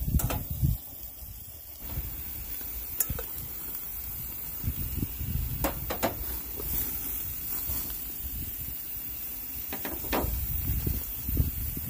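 Food sizzling steadily as it fries, with several sharp clicks of a cooking utensil against the cookware.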